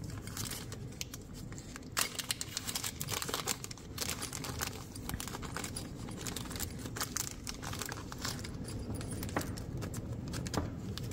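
Small clear plastic parts bag crinkling and rustling in the hands as it is handled and opened, a dense crackle of short ticks.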